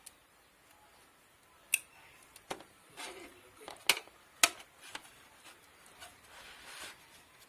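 Hard-drive cables and their plastic connectors being handled and plugged in while fitting a drive into a DVR: a few sharp clicks, three of them loudest, with softer rustling and scraping between them.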